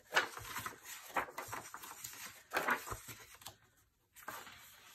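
Loose paper planner pages being flipped and slid over one another by hand: a run of rustles and light slaps, with a short pause about three and a half seconds in.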